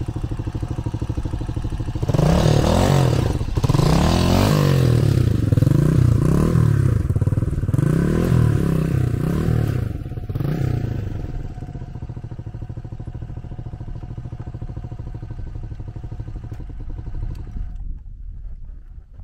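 Motorcycle engine revved up and down repeatedly, about once a second, then settling back to a steady idle.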